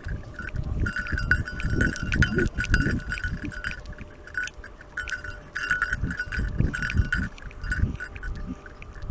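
A Doberman trotting with a camera strapped to it: rhythmic thumps of its stride and jolts of the mount, with a high ringing jingle pulsing in time with the steps.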